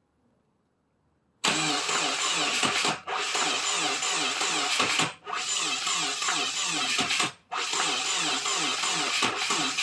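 Starter motor cranking the 2017 Subaru WRX's 2.0 L turbo flat-four in four runs of about two seconds, broken by brief pauses, with an even, rapid rhythm and the engine not catching. The engine has severe rod knock.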